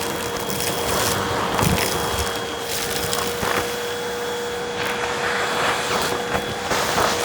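Vacuum cleaner running with a steady motor whine, crackling irregularly as it sucks up crunchy debris.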